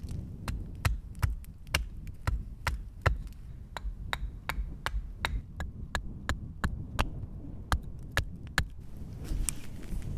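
Blade strokes cutting into wood while roughing out a carved wooden spoon: sharp, dry clicks about two to three a second, pausing briefly near the end.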